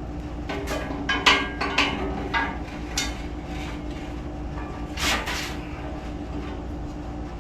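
Metal engine parts clanking and clinking as they are handled: a run of sharp knocks in the first three seconds and another clatter about five seconds in, over a steady hum.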